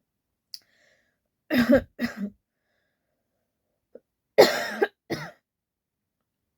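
A woman with a cold and a tickly throat coughing for real: two coughs about a second and a half in, then another two, the first of these the loudest, about four and a half seconds in.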